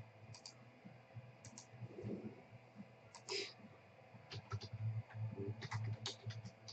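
Faint, scattered computer keyboard and mouse clicks, singly and in short runs, over a low steady hum.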